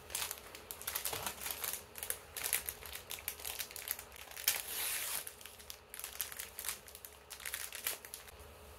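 Thin plastic film wrapper of a packaged sandwich crinkling and tearing as it is peeled open by hand: a run of irregular crackles, with a longer tear about halfway through.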